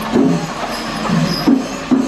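Percussion music with a steady beat of low drum strokes, about two to three a second.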